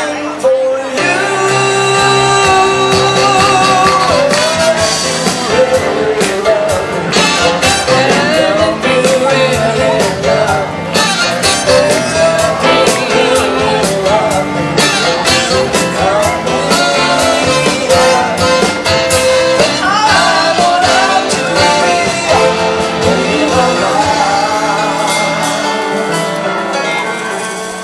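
Live band playing through a PA, with a singer, guitars and drums. It gets quieter near the end as the song winds down.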